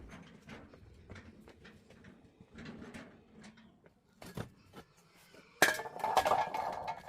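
Hard objects clinking and knocking as they are handled, in many small separate ticks. About five and a half seconds in comes a much louder scraping sound with a ringing tone in it.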